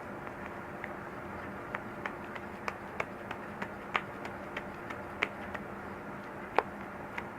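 Scattered light clicks and taps of kitchen handling, irregular and a few a second at most, over a steady low hum; the sharpest taps come about four, five and six and a half seconds in.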